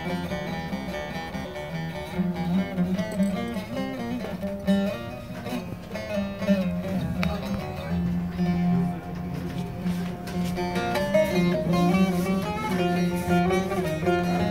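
Bağlama (saz), the Turkish long-necked lute, played as a plucked melody over a steady low drone.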